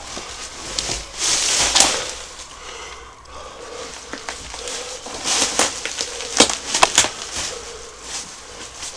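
Footsteps and handling crunching over loose brick rubble and debris: irregular scrapes and sharp cracks, with a rustling stretch about a second in and a cluster of sharp cracks past the middle.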